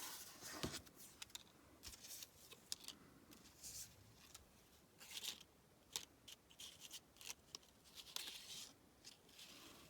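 Faint rustling and soft clicks of paper die-cut ephemera pieces and their crinkly packaging being sorted through by hand.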